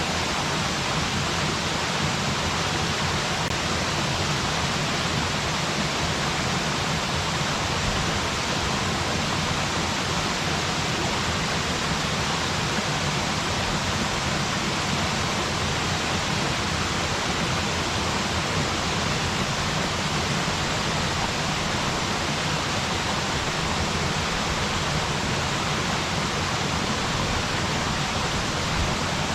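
Waterfall: a steady, unbroken rush of falling water splashing into its pool.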